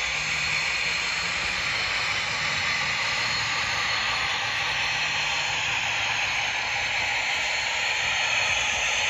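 Zimo sound decoder in an OO gauge Heljan Class 17 Clayton diesel model playing YouChoos diesel engine running sounds through its small speaker as the model moves along the track. A steady, hissy engine drone, with a low hum coming in at the start.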